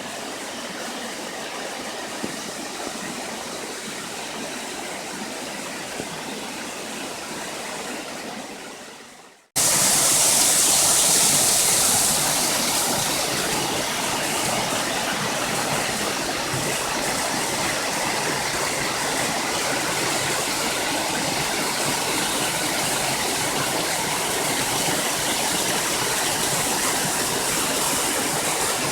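Steady rush of falling water from a waterfall. It fades out about nine seconds in, then cuts to a louder, hissier rush of water.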